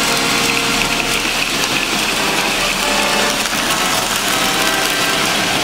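A toy electric train running on three-rail tubular track, a steady mechanical running noise, with music playing over it.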